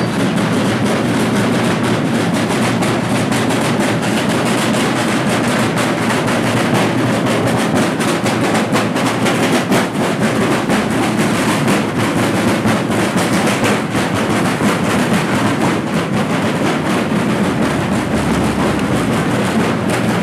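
A group of rope-tensioned marching drums beaten with sticks, playing a fast, unbroken rattle of strokes.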